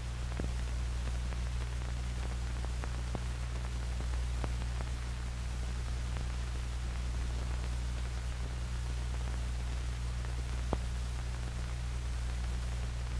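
Steady hum and hiss of an old optical film soundtrack, with a few faint scattered crackles.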